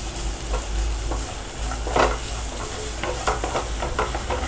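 Cashews, raisins and grated coconut frying in ghee in a pot, a steady sizzle under irregular scrapes of a wooden spatula stirring them, with one louder scrape about two seconds in.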